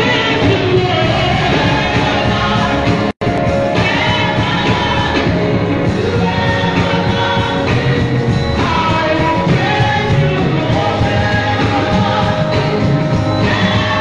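A woman singing into a microphone over a live band with drums, loud and amplified through a sound system. The audio drops out for a split second about three seconds in.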